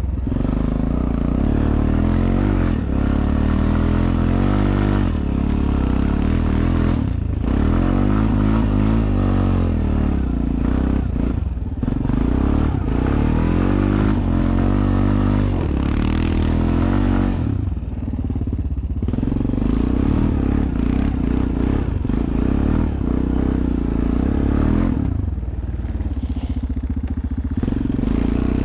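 ATV engine running under way, its note rising and falling as the throttle is worked. It eases off briefly about two-thirds of the way through and again near the end before pulling again.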